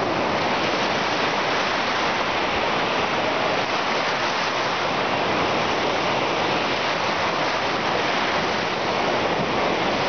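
Small waves breaking and washing up onto a sandy shore, a steady rushing noise.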